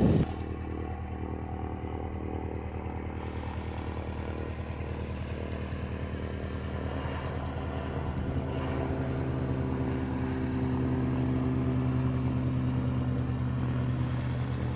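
Pilatus PC-6 Porter's turboprop engine and propeller running steadily at takeoff power as the aircraft lifts off and climbs away. The sound grows a little louder after about eight seconds.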